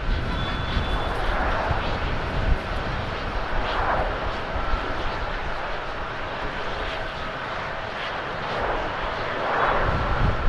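Jet engines of an Airbus A330-900, its Rolls-Royce Trent 7000s, running as the airliner rolls along the runway: a steady rushing jet noise.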